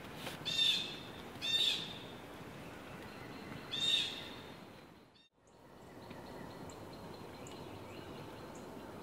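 Wild turkey calling in woodland: three loud, short calls, about half a second, one and a half and four seconds in. Faint small-bird chirps follow after a brief dropout.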